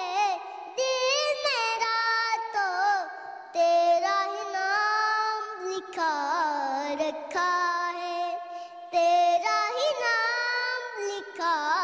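A young boy singing a slow song solo, holding long high notes that waver with vibrato, with short breaths between phrases.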